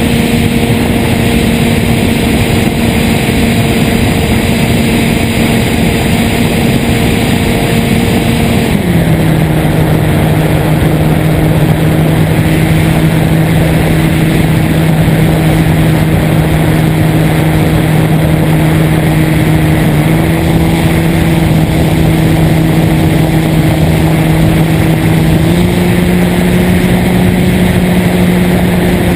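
Model airplane's motor and propeller droning steadily, heard from the airplane itself, under a heavy rush of wind on the onboard microphone. The pitch drops sharply about nine seconds in as the throttle is eased back, then steps up a little near the end.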